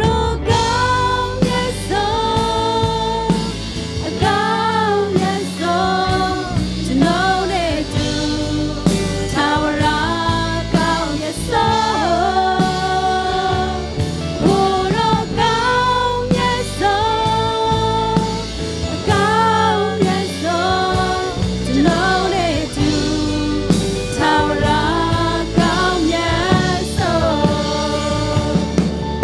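Live Burmese-language worship song: a woman singing lead with backing singers over a band of electric guitar, acoustic guitar and keyboard.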